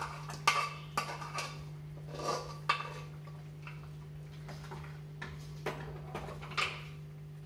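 A metal spoon scraping and clinking against a metal pan and a steel cooking pot as food is scraped out and stirred, with scattered sharp knocks. A steady low hum runs underneath.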